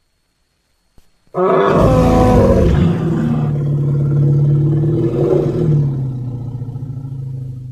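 Indian rhinoceros sound effect: one long, deep call that starts about a second and a half in and holds a fairly steady pitch, fading gradually over about six seconds.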